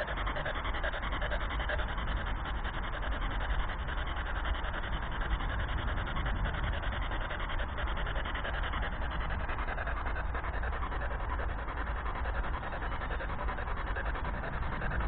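Radio static from a spirit box sweeping forward through FM frequencies: a steady rushing hiss.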